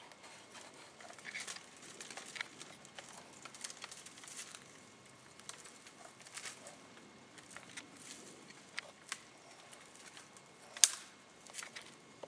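Irregular light rustling and crackling in dry leaves and brush, with one sharper crack about eleven seconds in.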